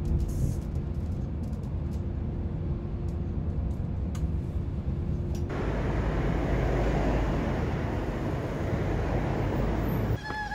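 Road noise heard from inside a moving vehicle: a low rumble with a steady hum. About five seconds in it switches abruptly to the louder noise of street traffic at the roadside as a city bus approaches.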